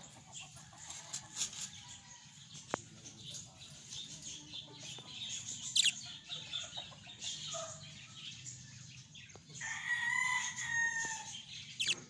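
Budgerigars chirping in short, scattered calls, with a few light clicks, and a longer, steady call about ten seconds in.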